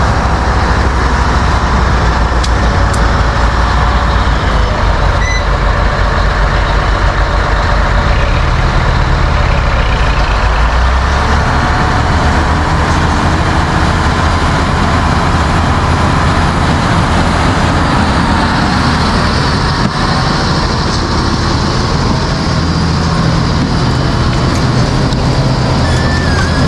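Diesel engine of a bulldozer pulling a tile-drainage plow, running steadily under load; its low engine note shifts about eleven seconds in.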